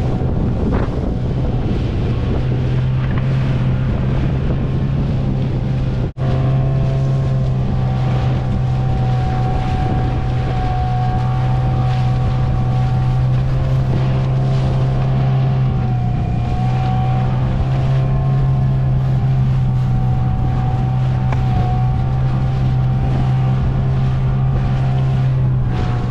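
A dinghy's outboard motor running steadily under way, with water rushing past the hull and wind buffeting the microphone. The sound briefly cuts out about six seconds in.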